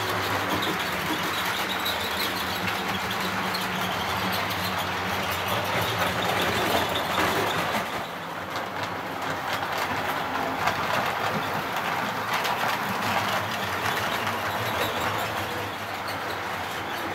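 Model trains running on the layout: a steady clatter of wheels on track over a low motor hum. The sound changes about eight seconds in.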